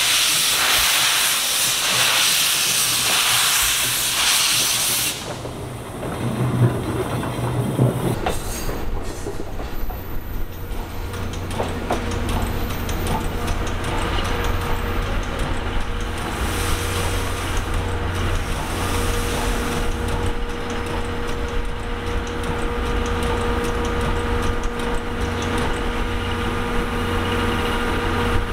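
JR East steam locomotive C61 20 letting off steam with a loud hiss for about five seconds during shunting, then a steady low mechanical hum with a few steady tones.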